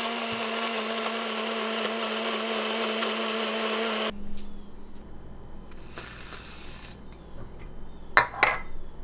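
Single-serve personal blender motor running steadily, blending a banana protein shake, then switching off about four seconds in. Near the end come short, loud hissing sprays from an aerosol can of whipped cream.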